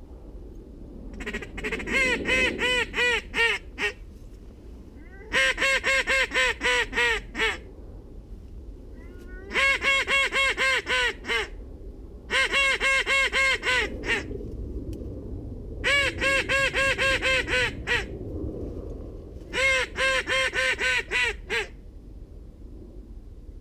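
Hunter's goose call blown to imitate Canada geese: six bursts of quick, loud honks and clucks, each about two seconds long and a few seconds apart.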